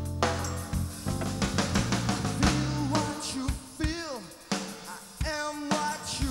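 Live rock band playing a song: drum kit with bass drum and snare, held bass notes, and keyboards. In the second half a melody line comes in with notes that bend up and down in pitch.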